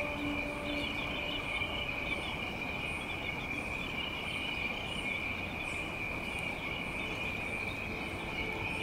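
Steady high-pitched chorus of insects droning without a break, with a faint higher chirp repeating at a regular beat above it.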